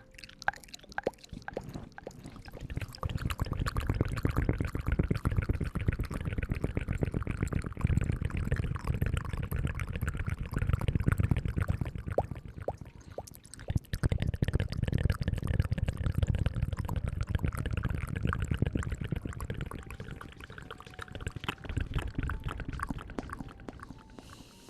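ASMR hair-washing sounds: wet, crackling scrubbing of lather worked close to the microphone. It comes in two long swells, easing off briefly about halfway through.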